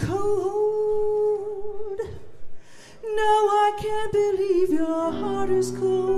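Female jazz vocalist singing a slow ballad in long, held notes, with a short break about two seconds in. Keyboard chords sustain underneath.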